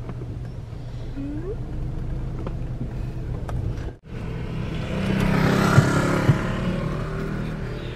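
Car engine idling, heard from inside the cabin as a steady low hum. After a short break about four seconds in, a louder rush of noise rises, with two light knocks.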